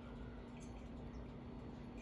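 Faint small clicks and rustles of hands handling a ceiling fan's light-kit wires and wire nuts, over a steady low hum.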